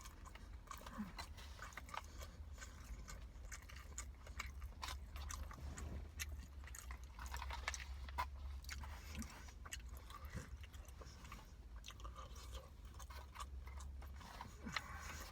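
A person chewing and eating chicken biryani, with many soft, irregular mouth clicks and smacks over a steady low hum.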